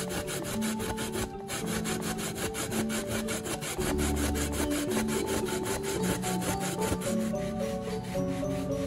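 Fresh coconut flesh being grated by hand on a flat stainless-steel grater: quick, even rasping strokes, about six a second. Background music plays underneath.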